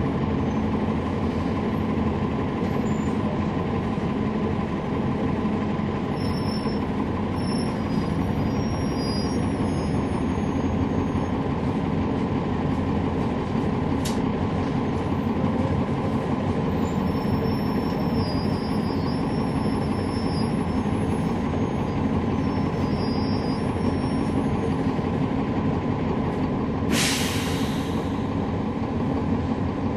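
Cummins ISL9 inline-six diesel engine of a 2011 NABI 416.15 transit bus with a ZF Ecolife automatic transmission, running steadily as heard from inside the bus. A short hiss of air lasting about a second comes near the end.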